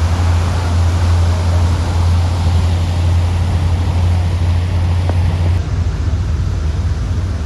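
Passenger ferry underway: a steady low engine rumble with rushing water and wind noise, turning slightly duller and quieter about five and a half seconds in.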